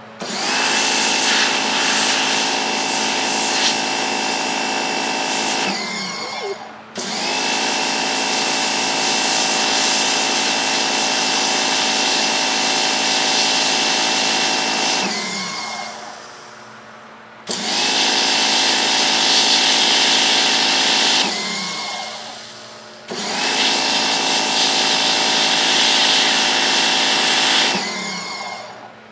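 High-pressure washer rated at 4,200 PSI, spraying through its yellow nozzle onto a pumpkin in four long bursts of several seconds each: the loud hiss of the water jet over the steady hum of the pump and motor. Each time the trigger is released, about 6, 15, 21 and 28 seconds in, the jet stops and the machine's pitch bends before the next burst.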